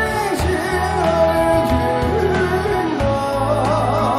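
A man singing a Chinese grassland-style song into a microphone, backed by a band with a steady bass line and drums. He holds long notes that waver near the end.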